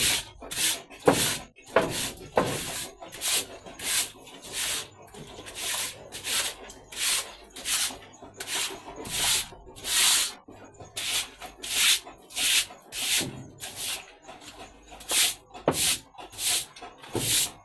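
Broom scrubbing a wet pig-pen floor in quick, repeated strokes, about two a second, as the pen is washed down with water.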